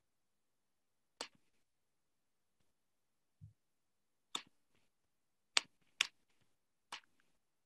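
Scattered sharp clicks at a computer, about five in all, irregularly spaced, with two close together about six seconds in, and one soft low thump near the middle.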